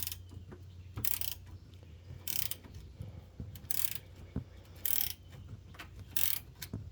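Hand ratchet wrench backing out a long bolt, its pawl clicking in short bursts on each return swing, about every second and a quarter.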